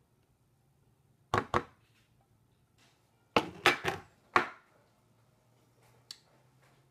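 Sharp knocks and clacks from a metal garlic press being handled and opened: two quick knocks, then four more a couple of seconds later, and a single lighter click near the end.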